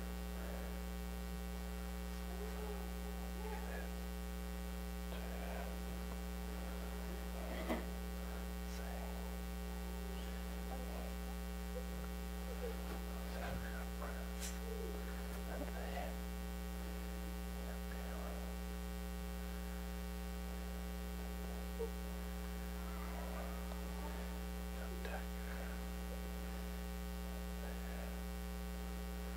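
Steady electrical mains hum with a low buzz, under faint scattered small sounds and a couple of light clicks.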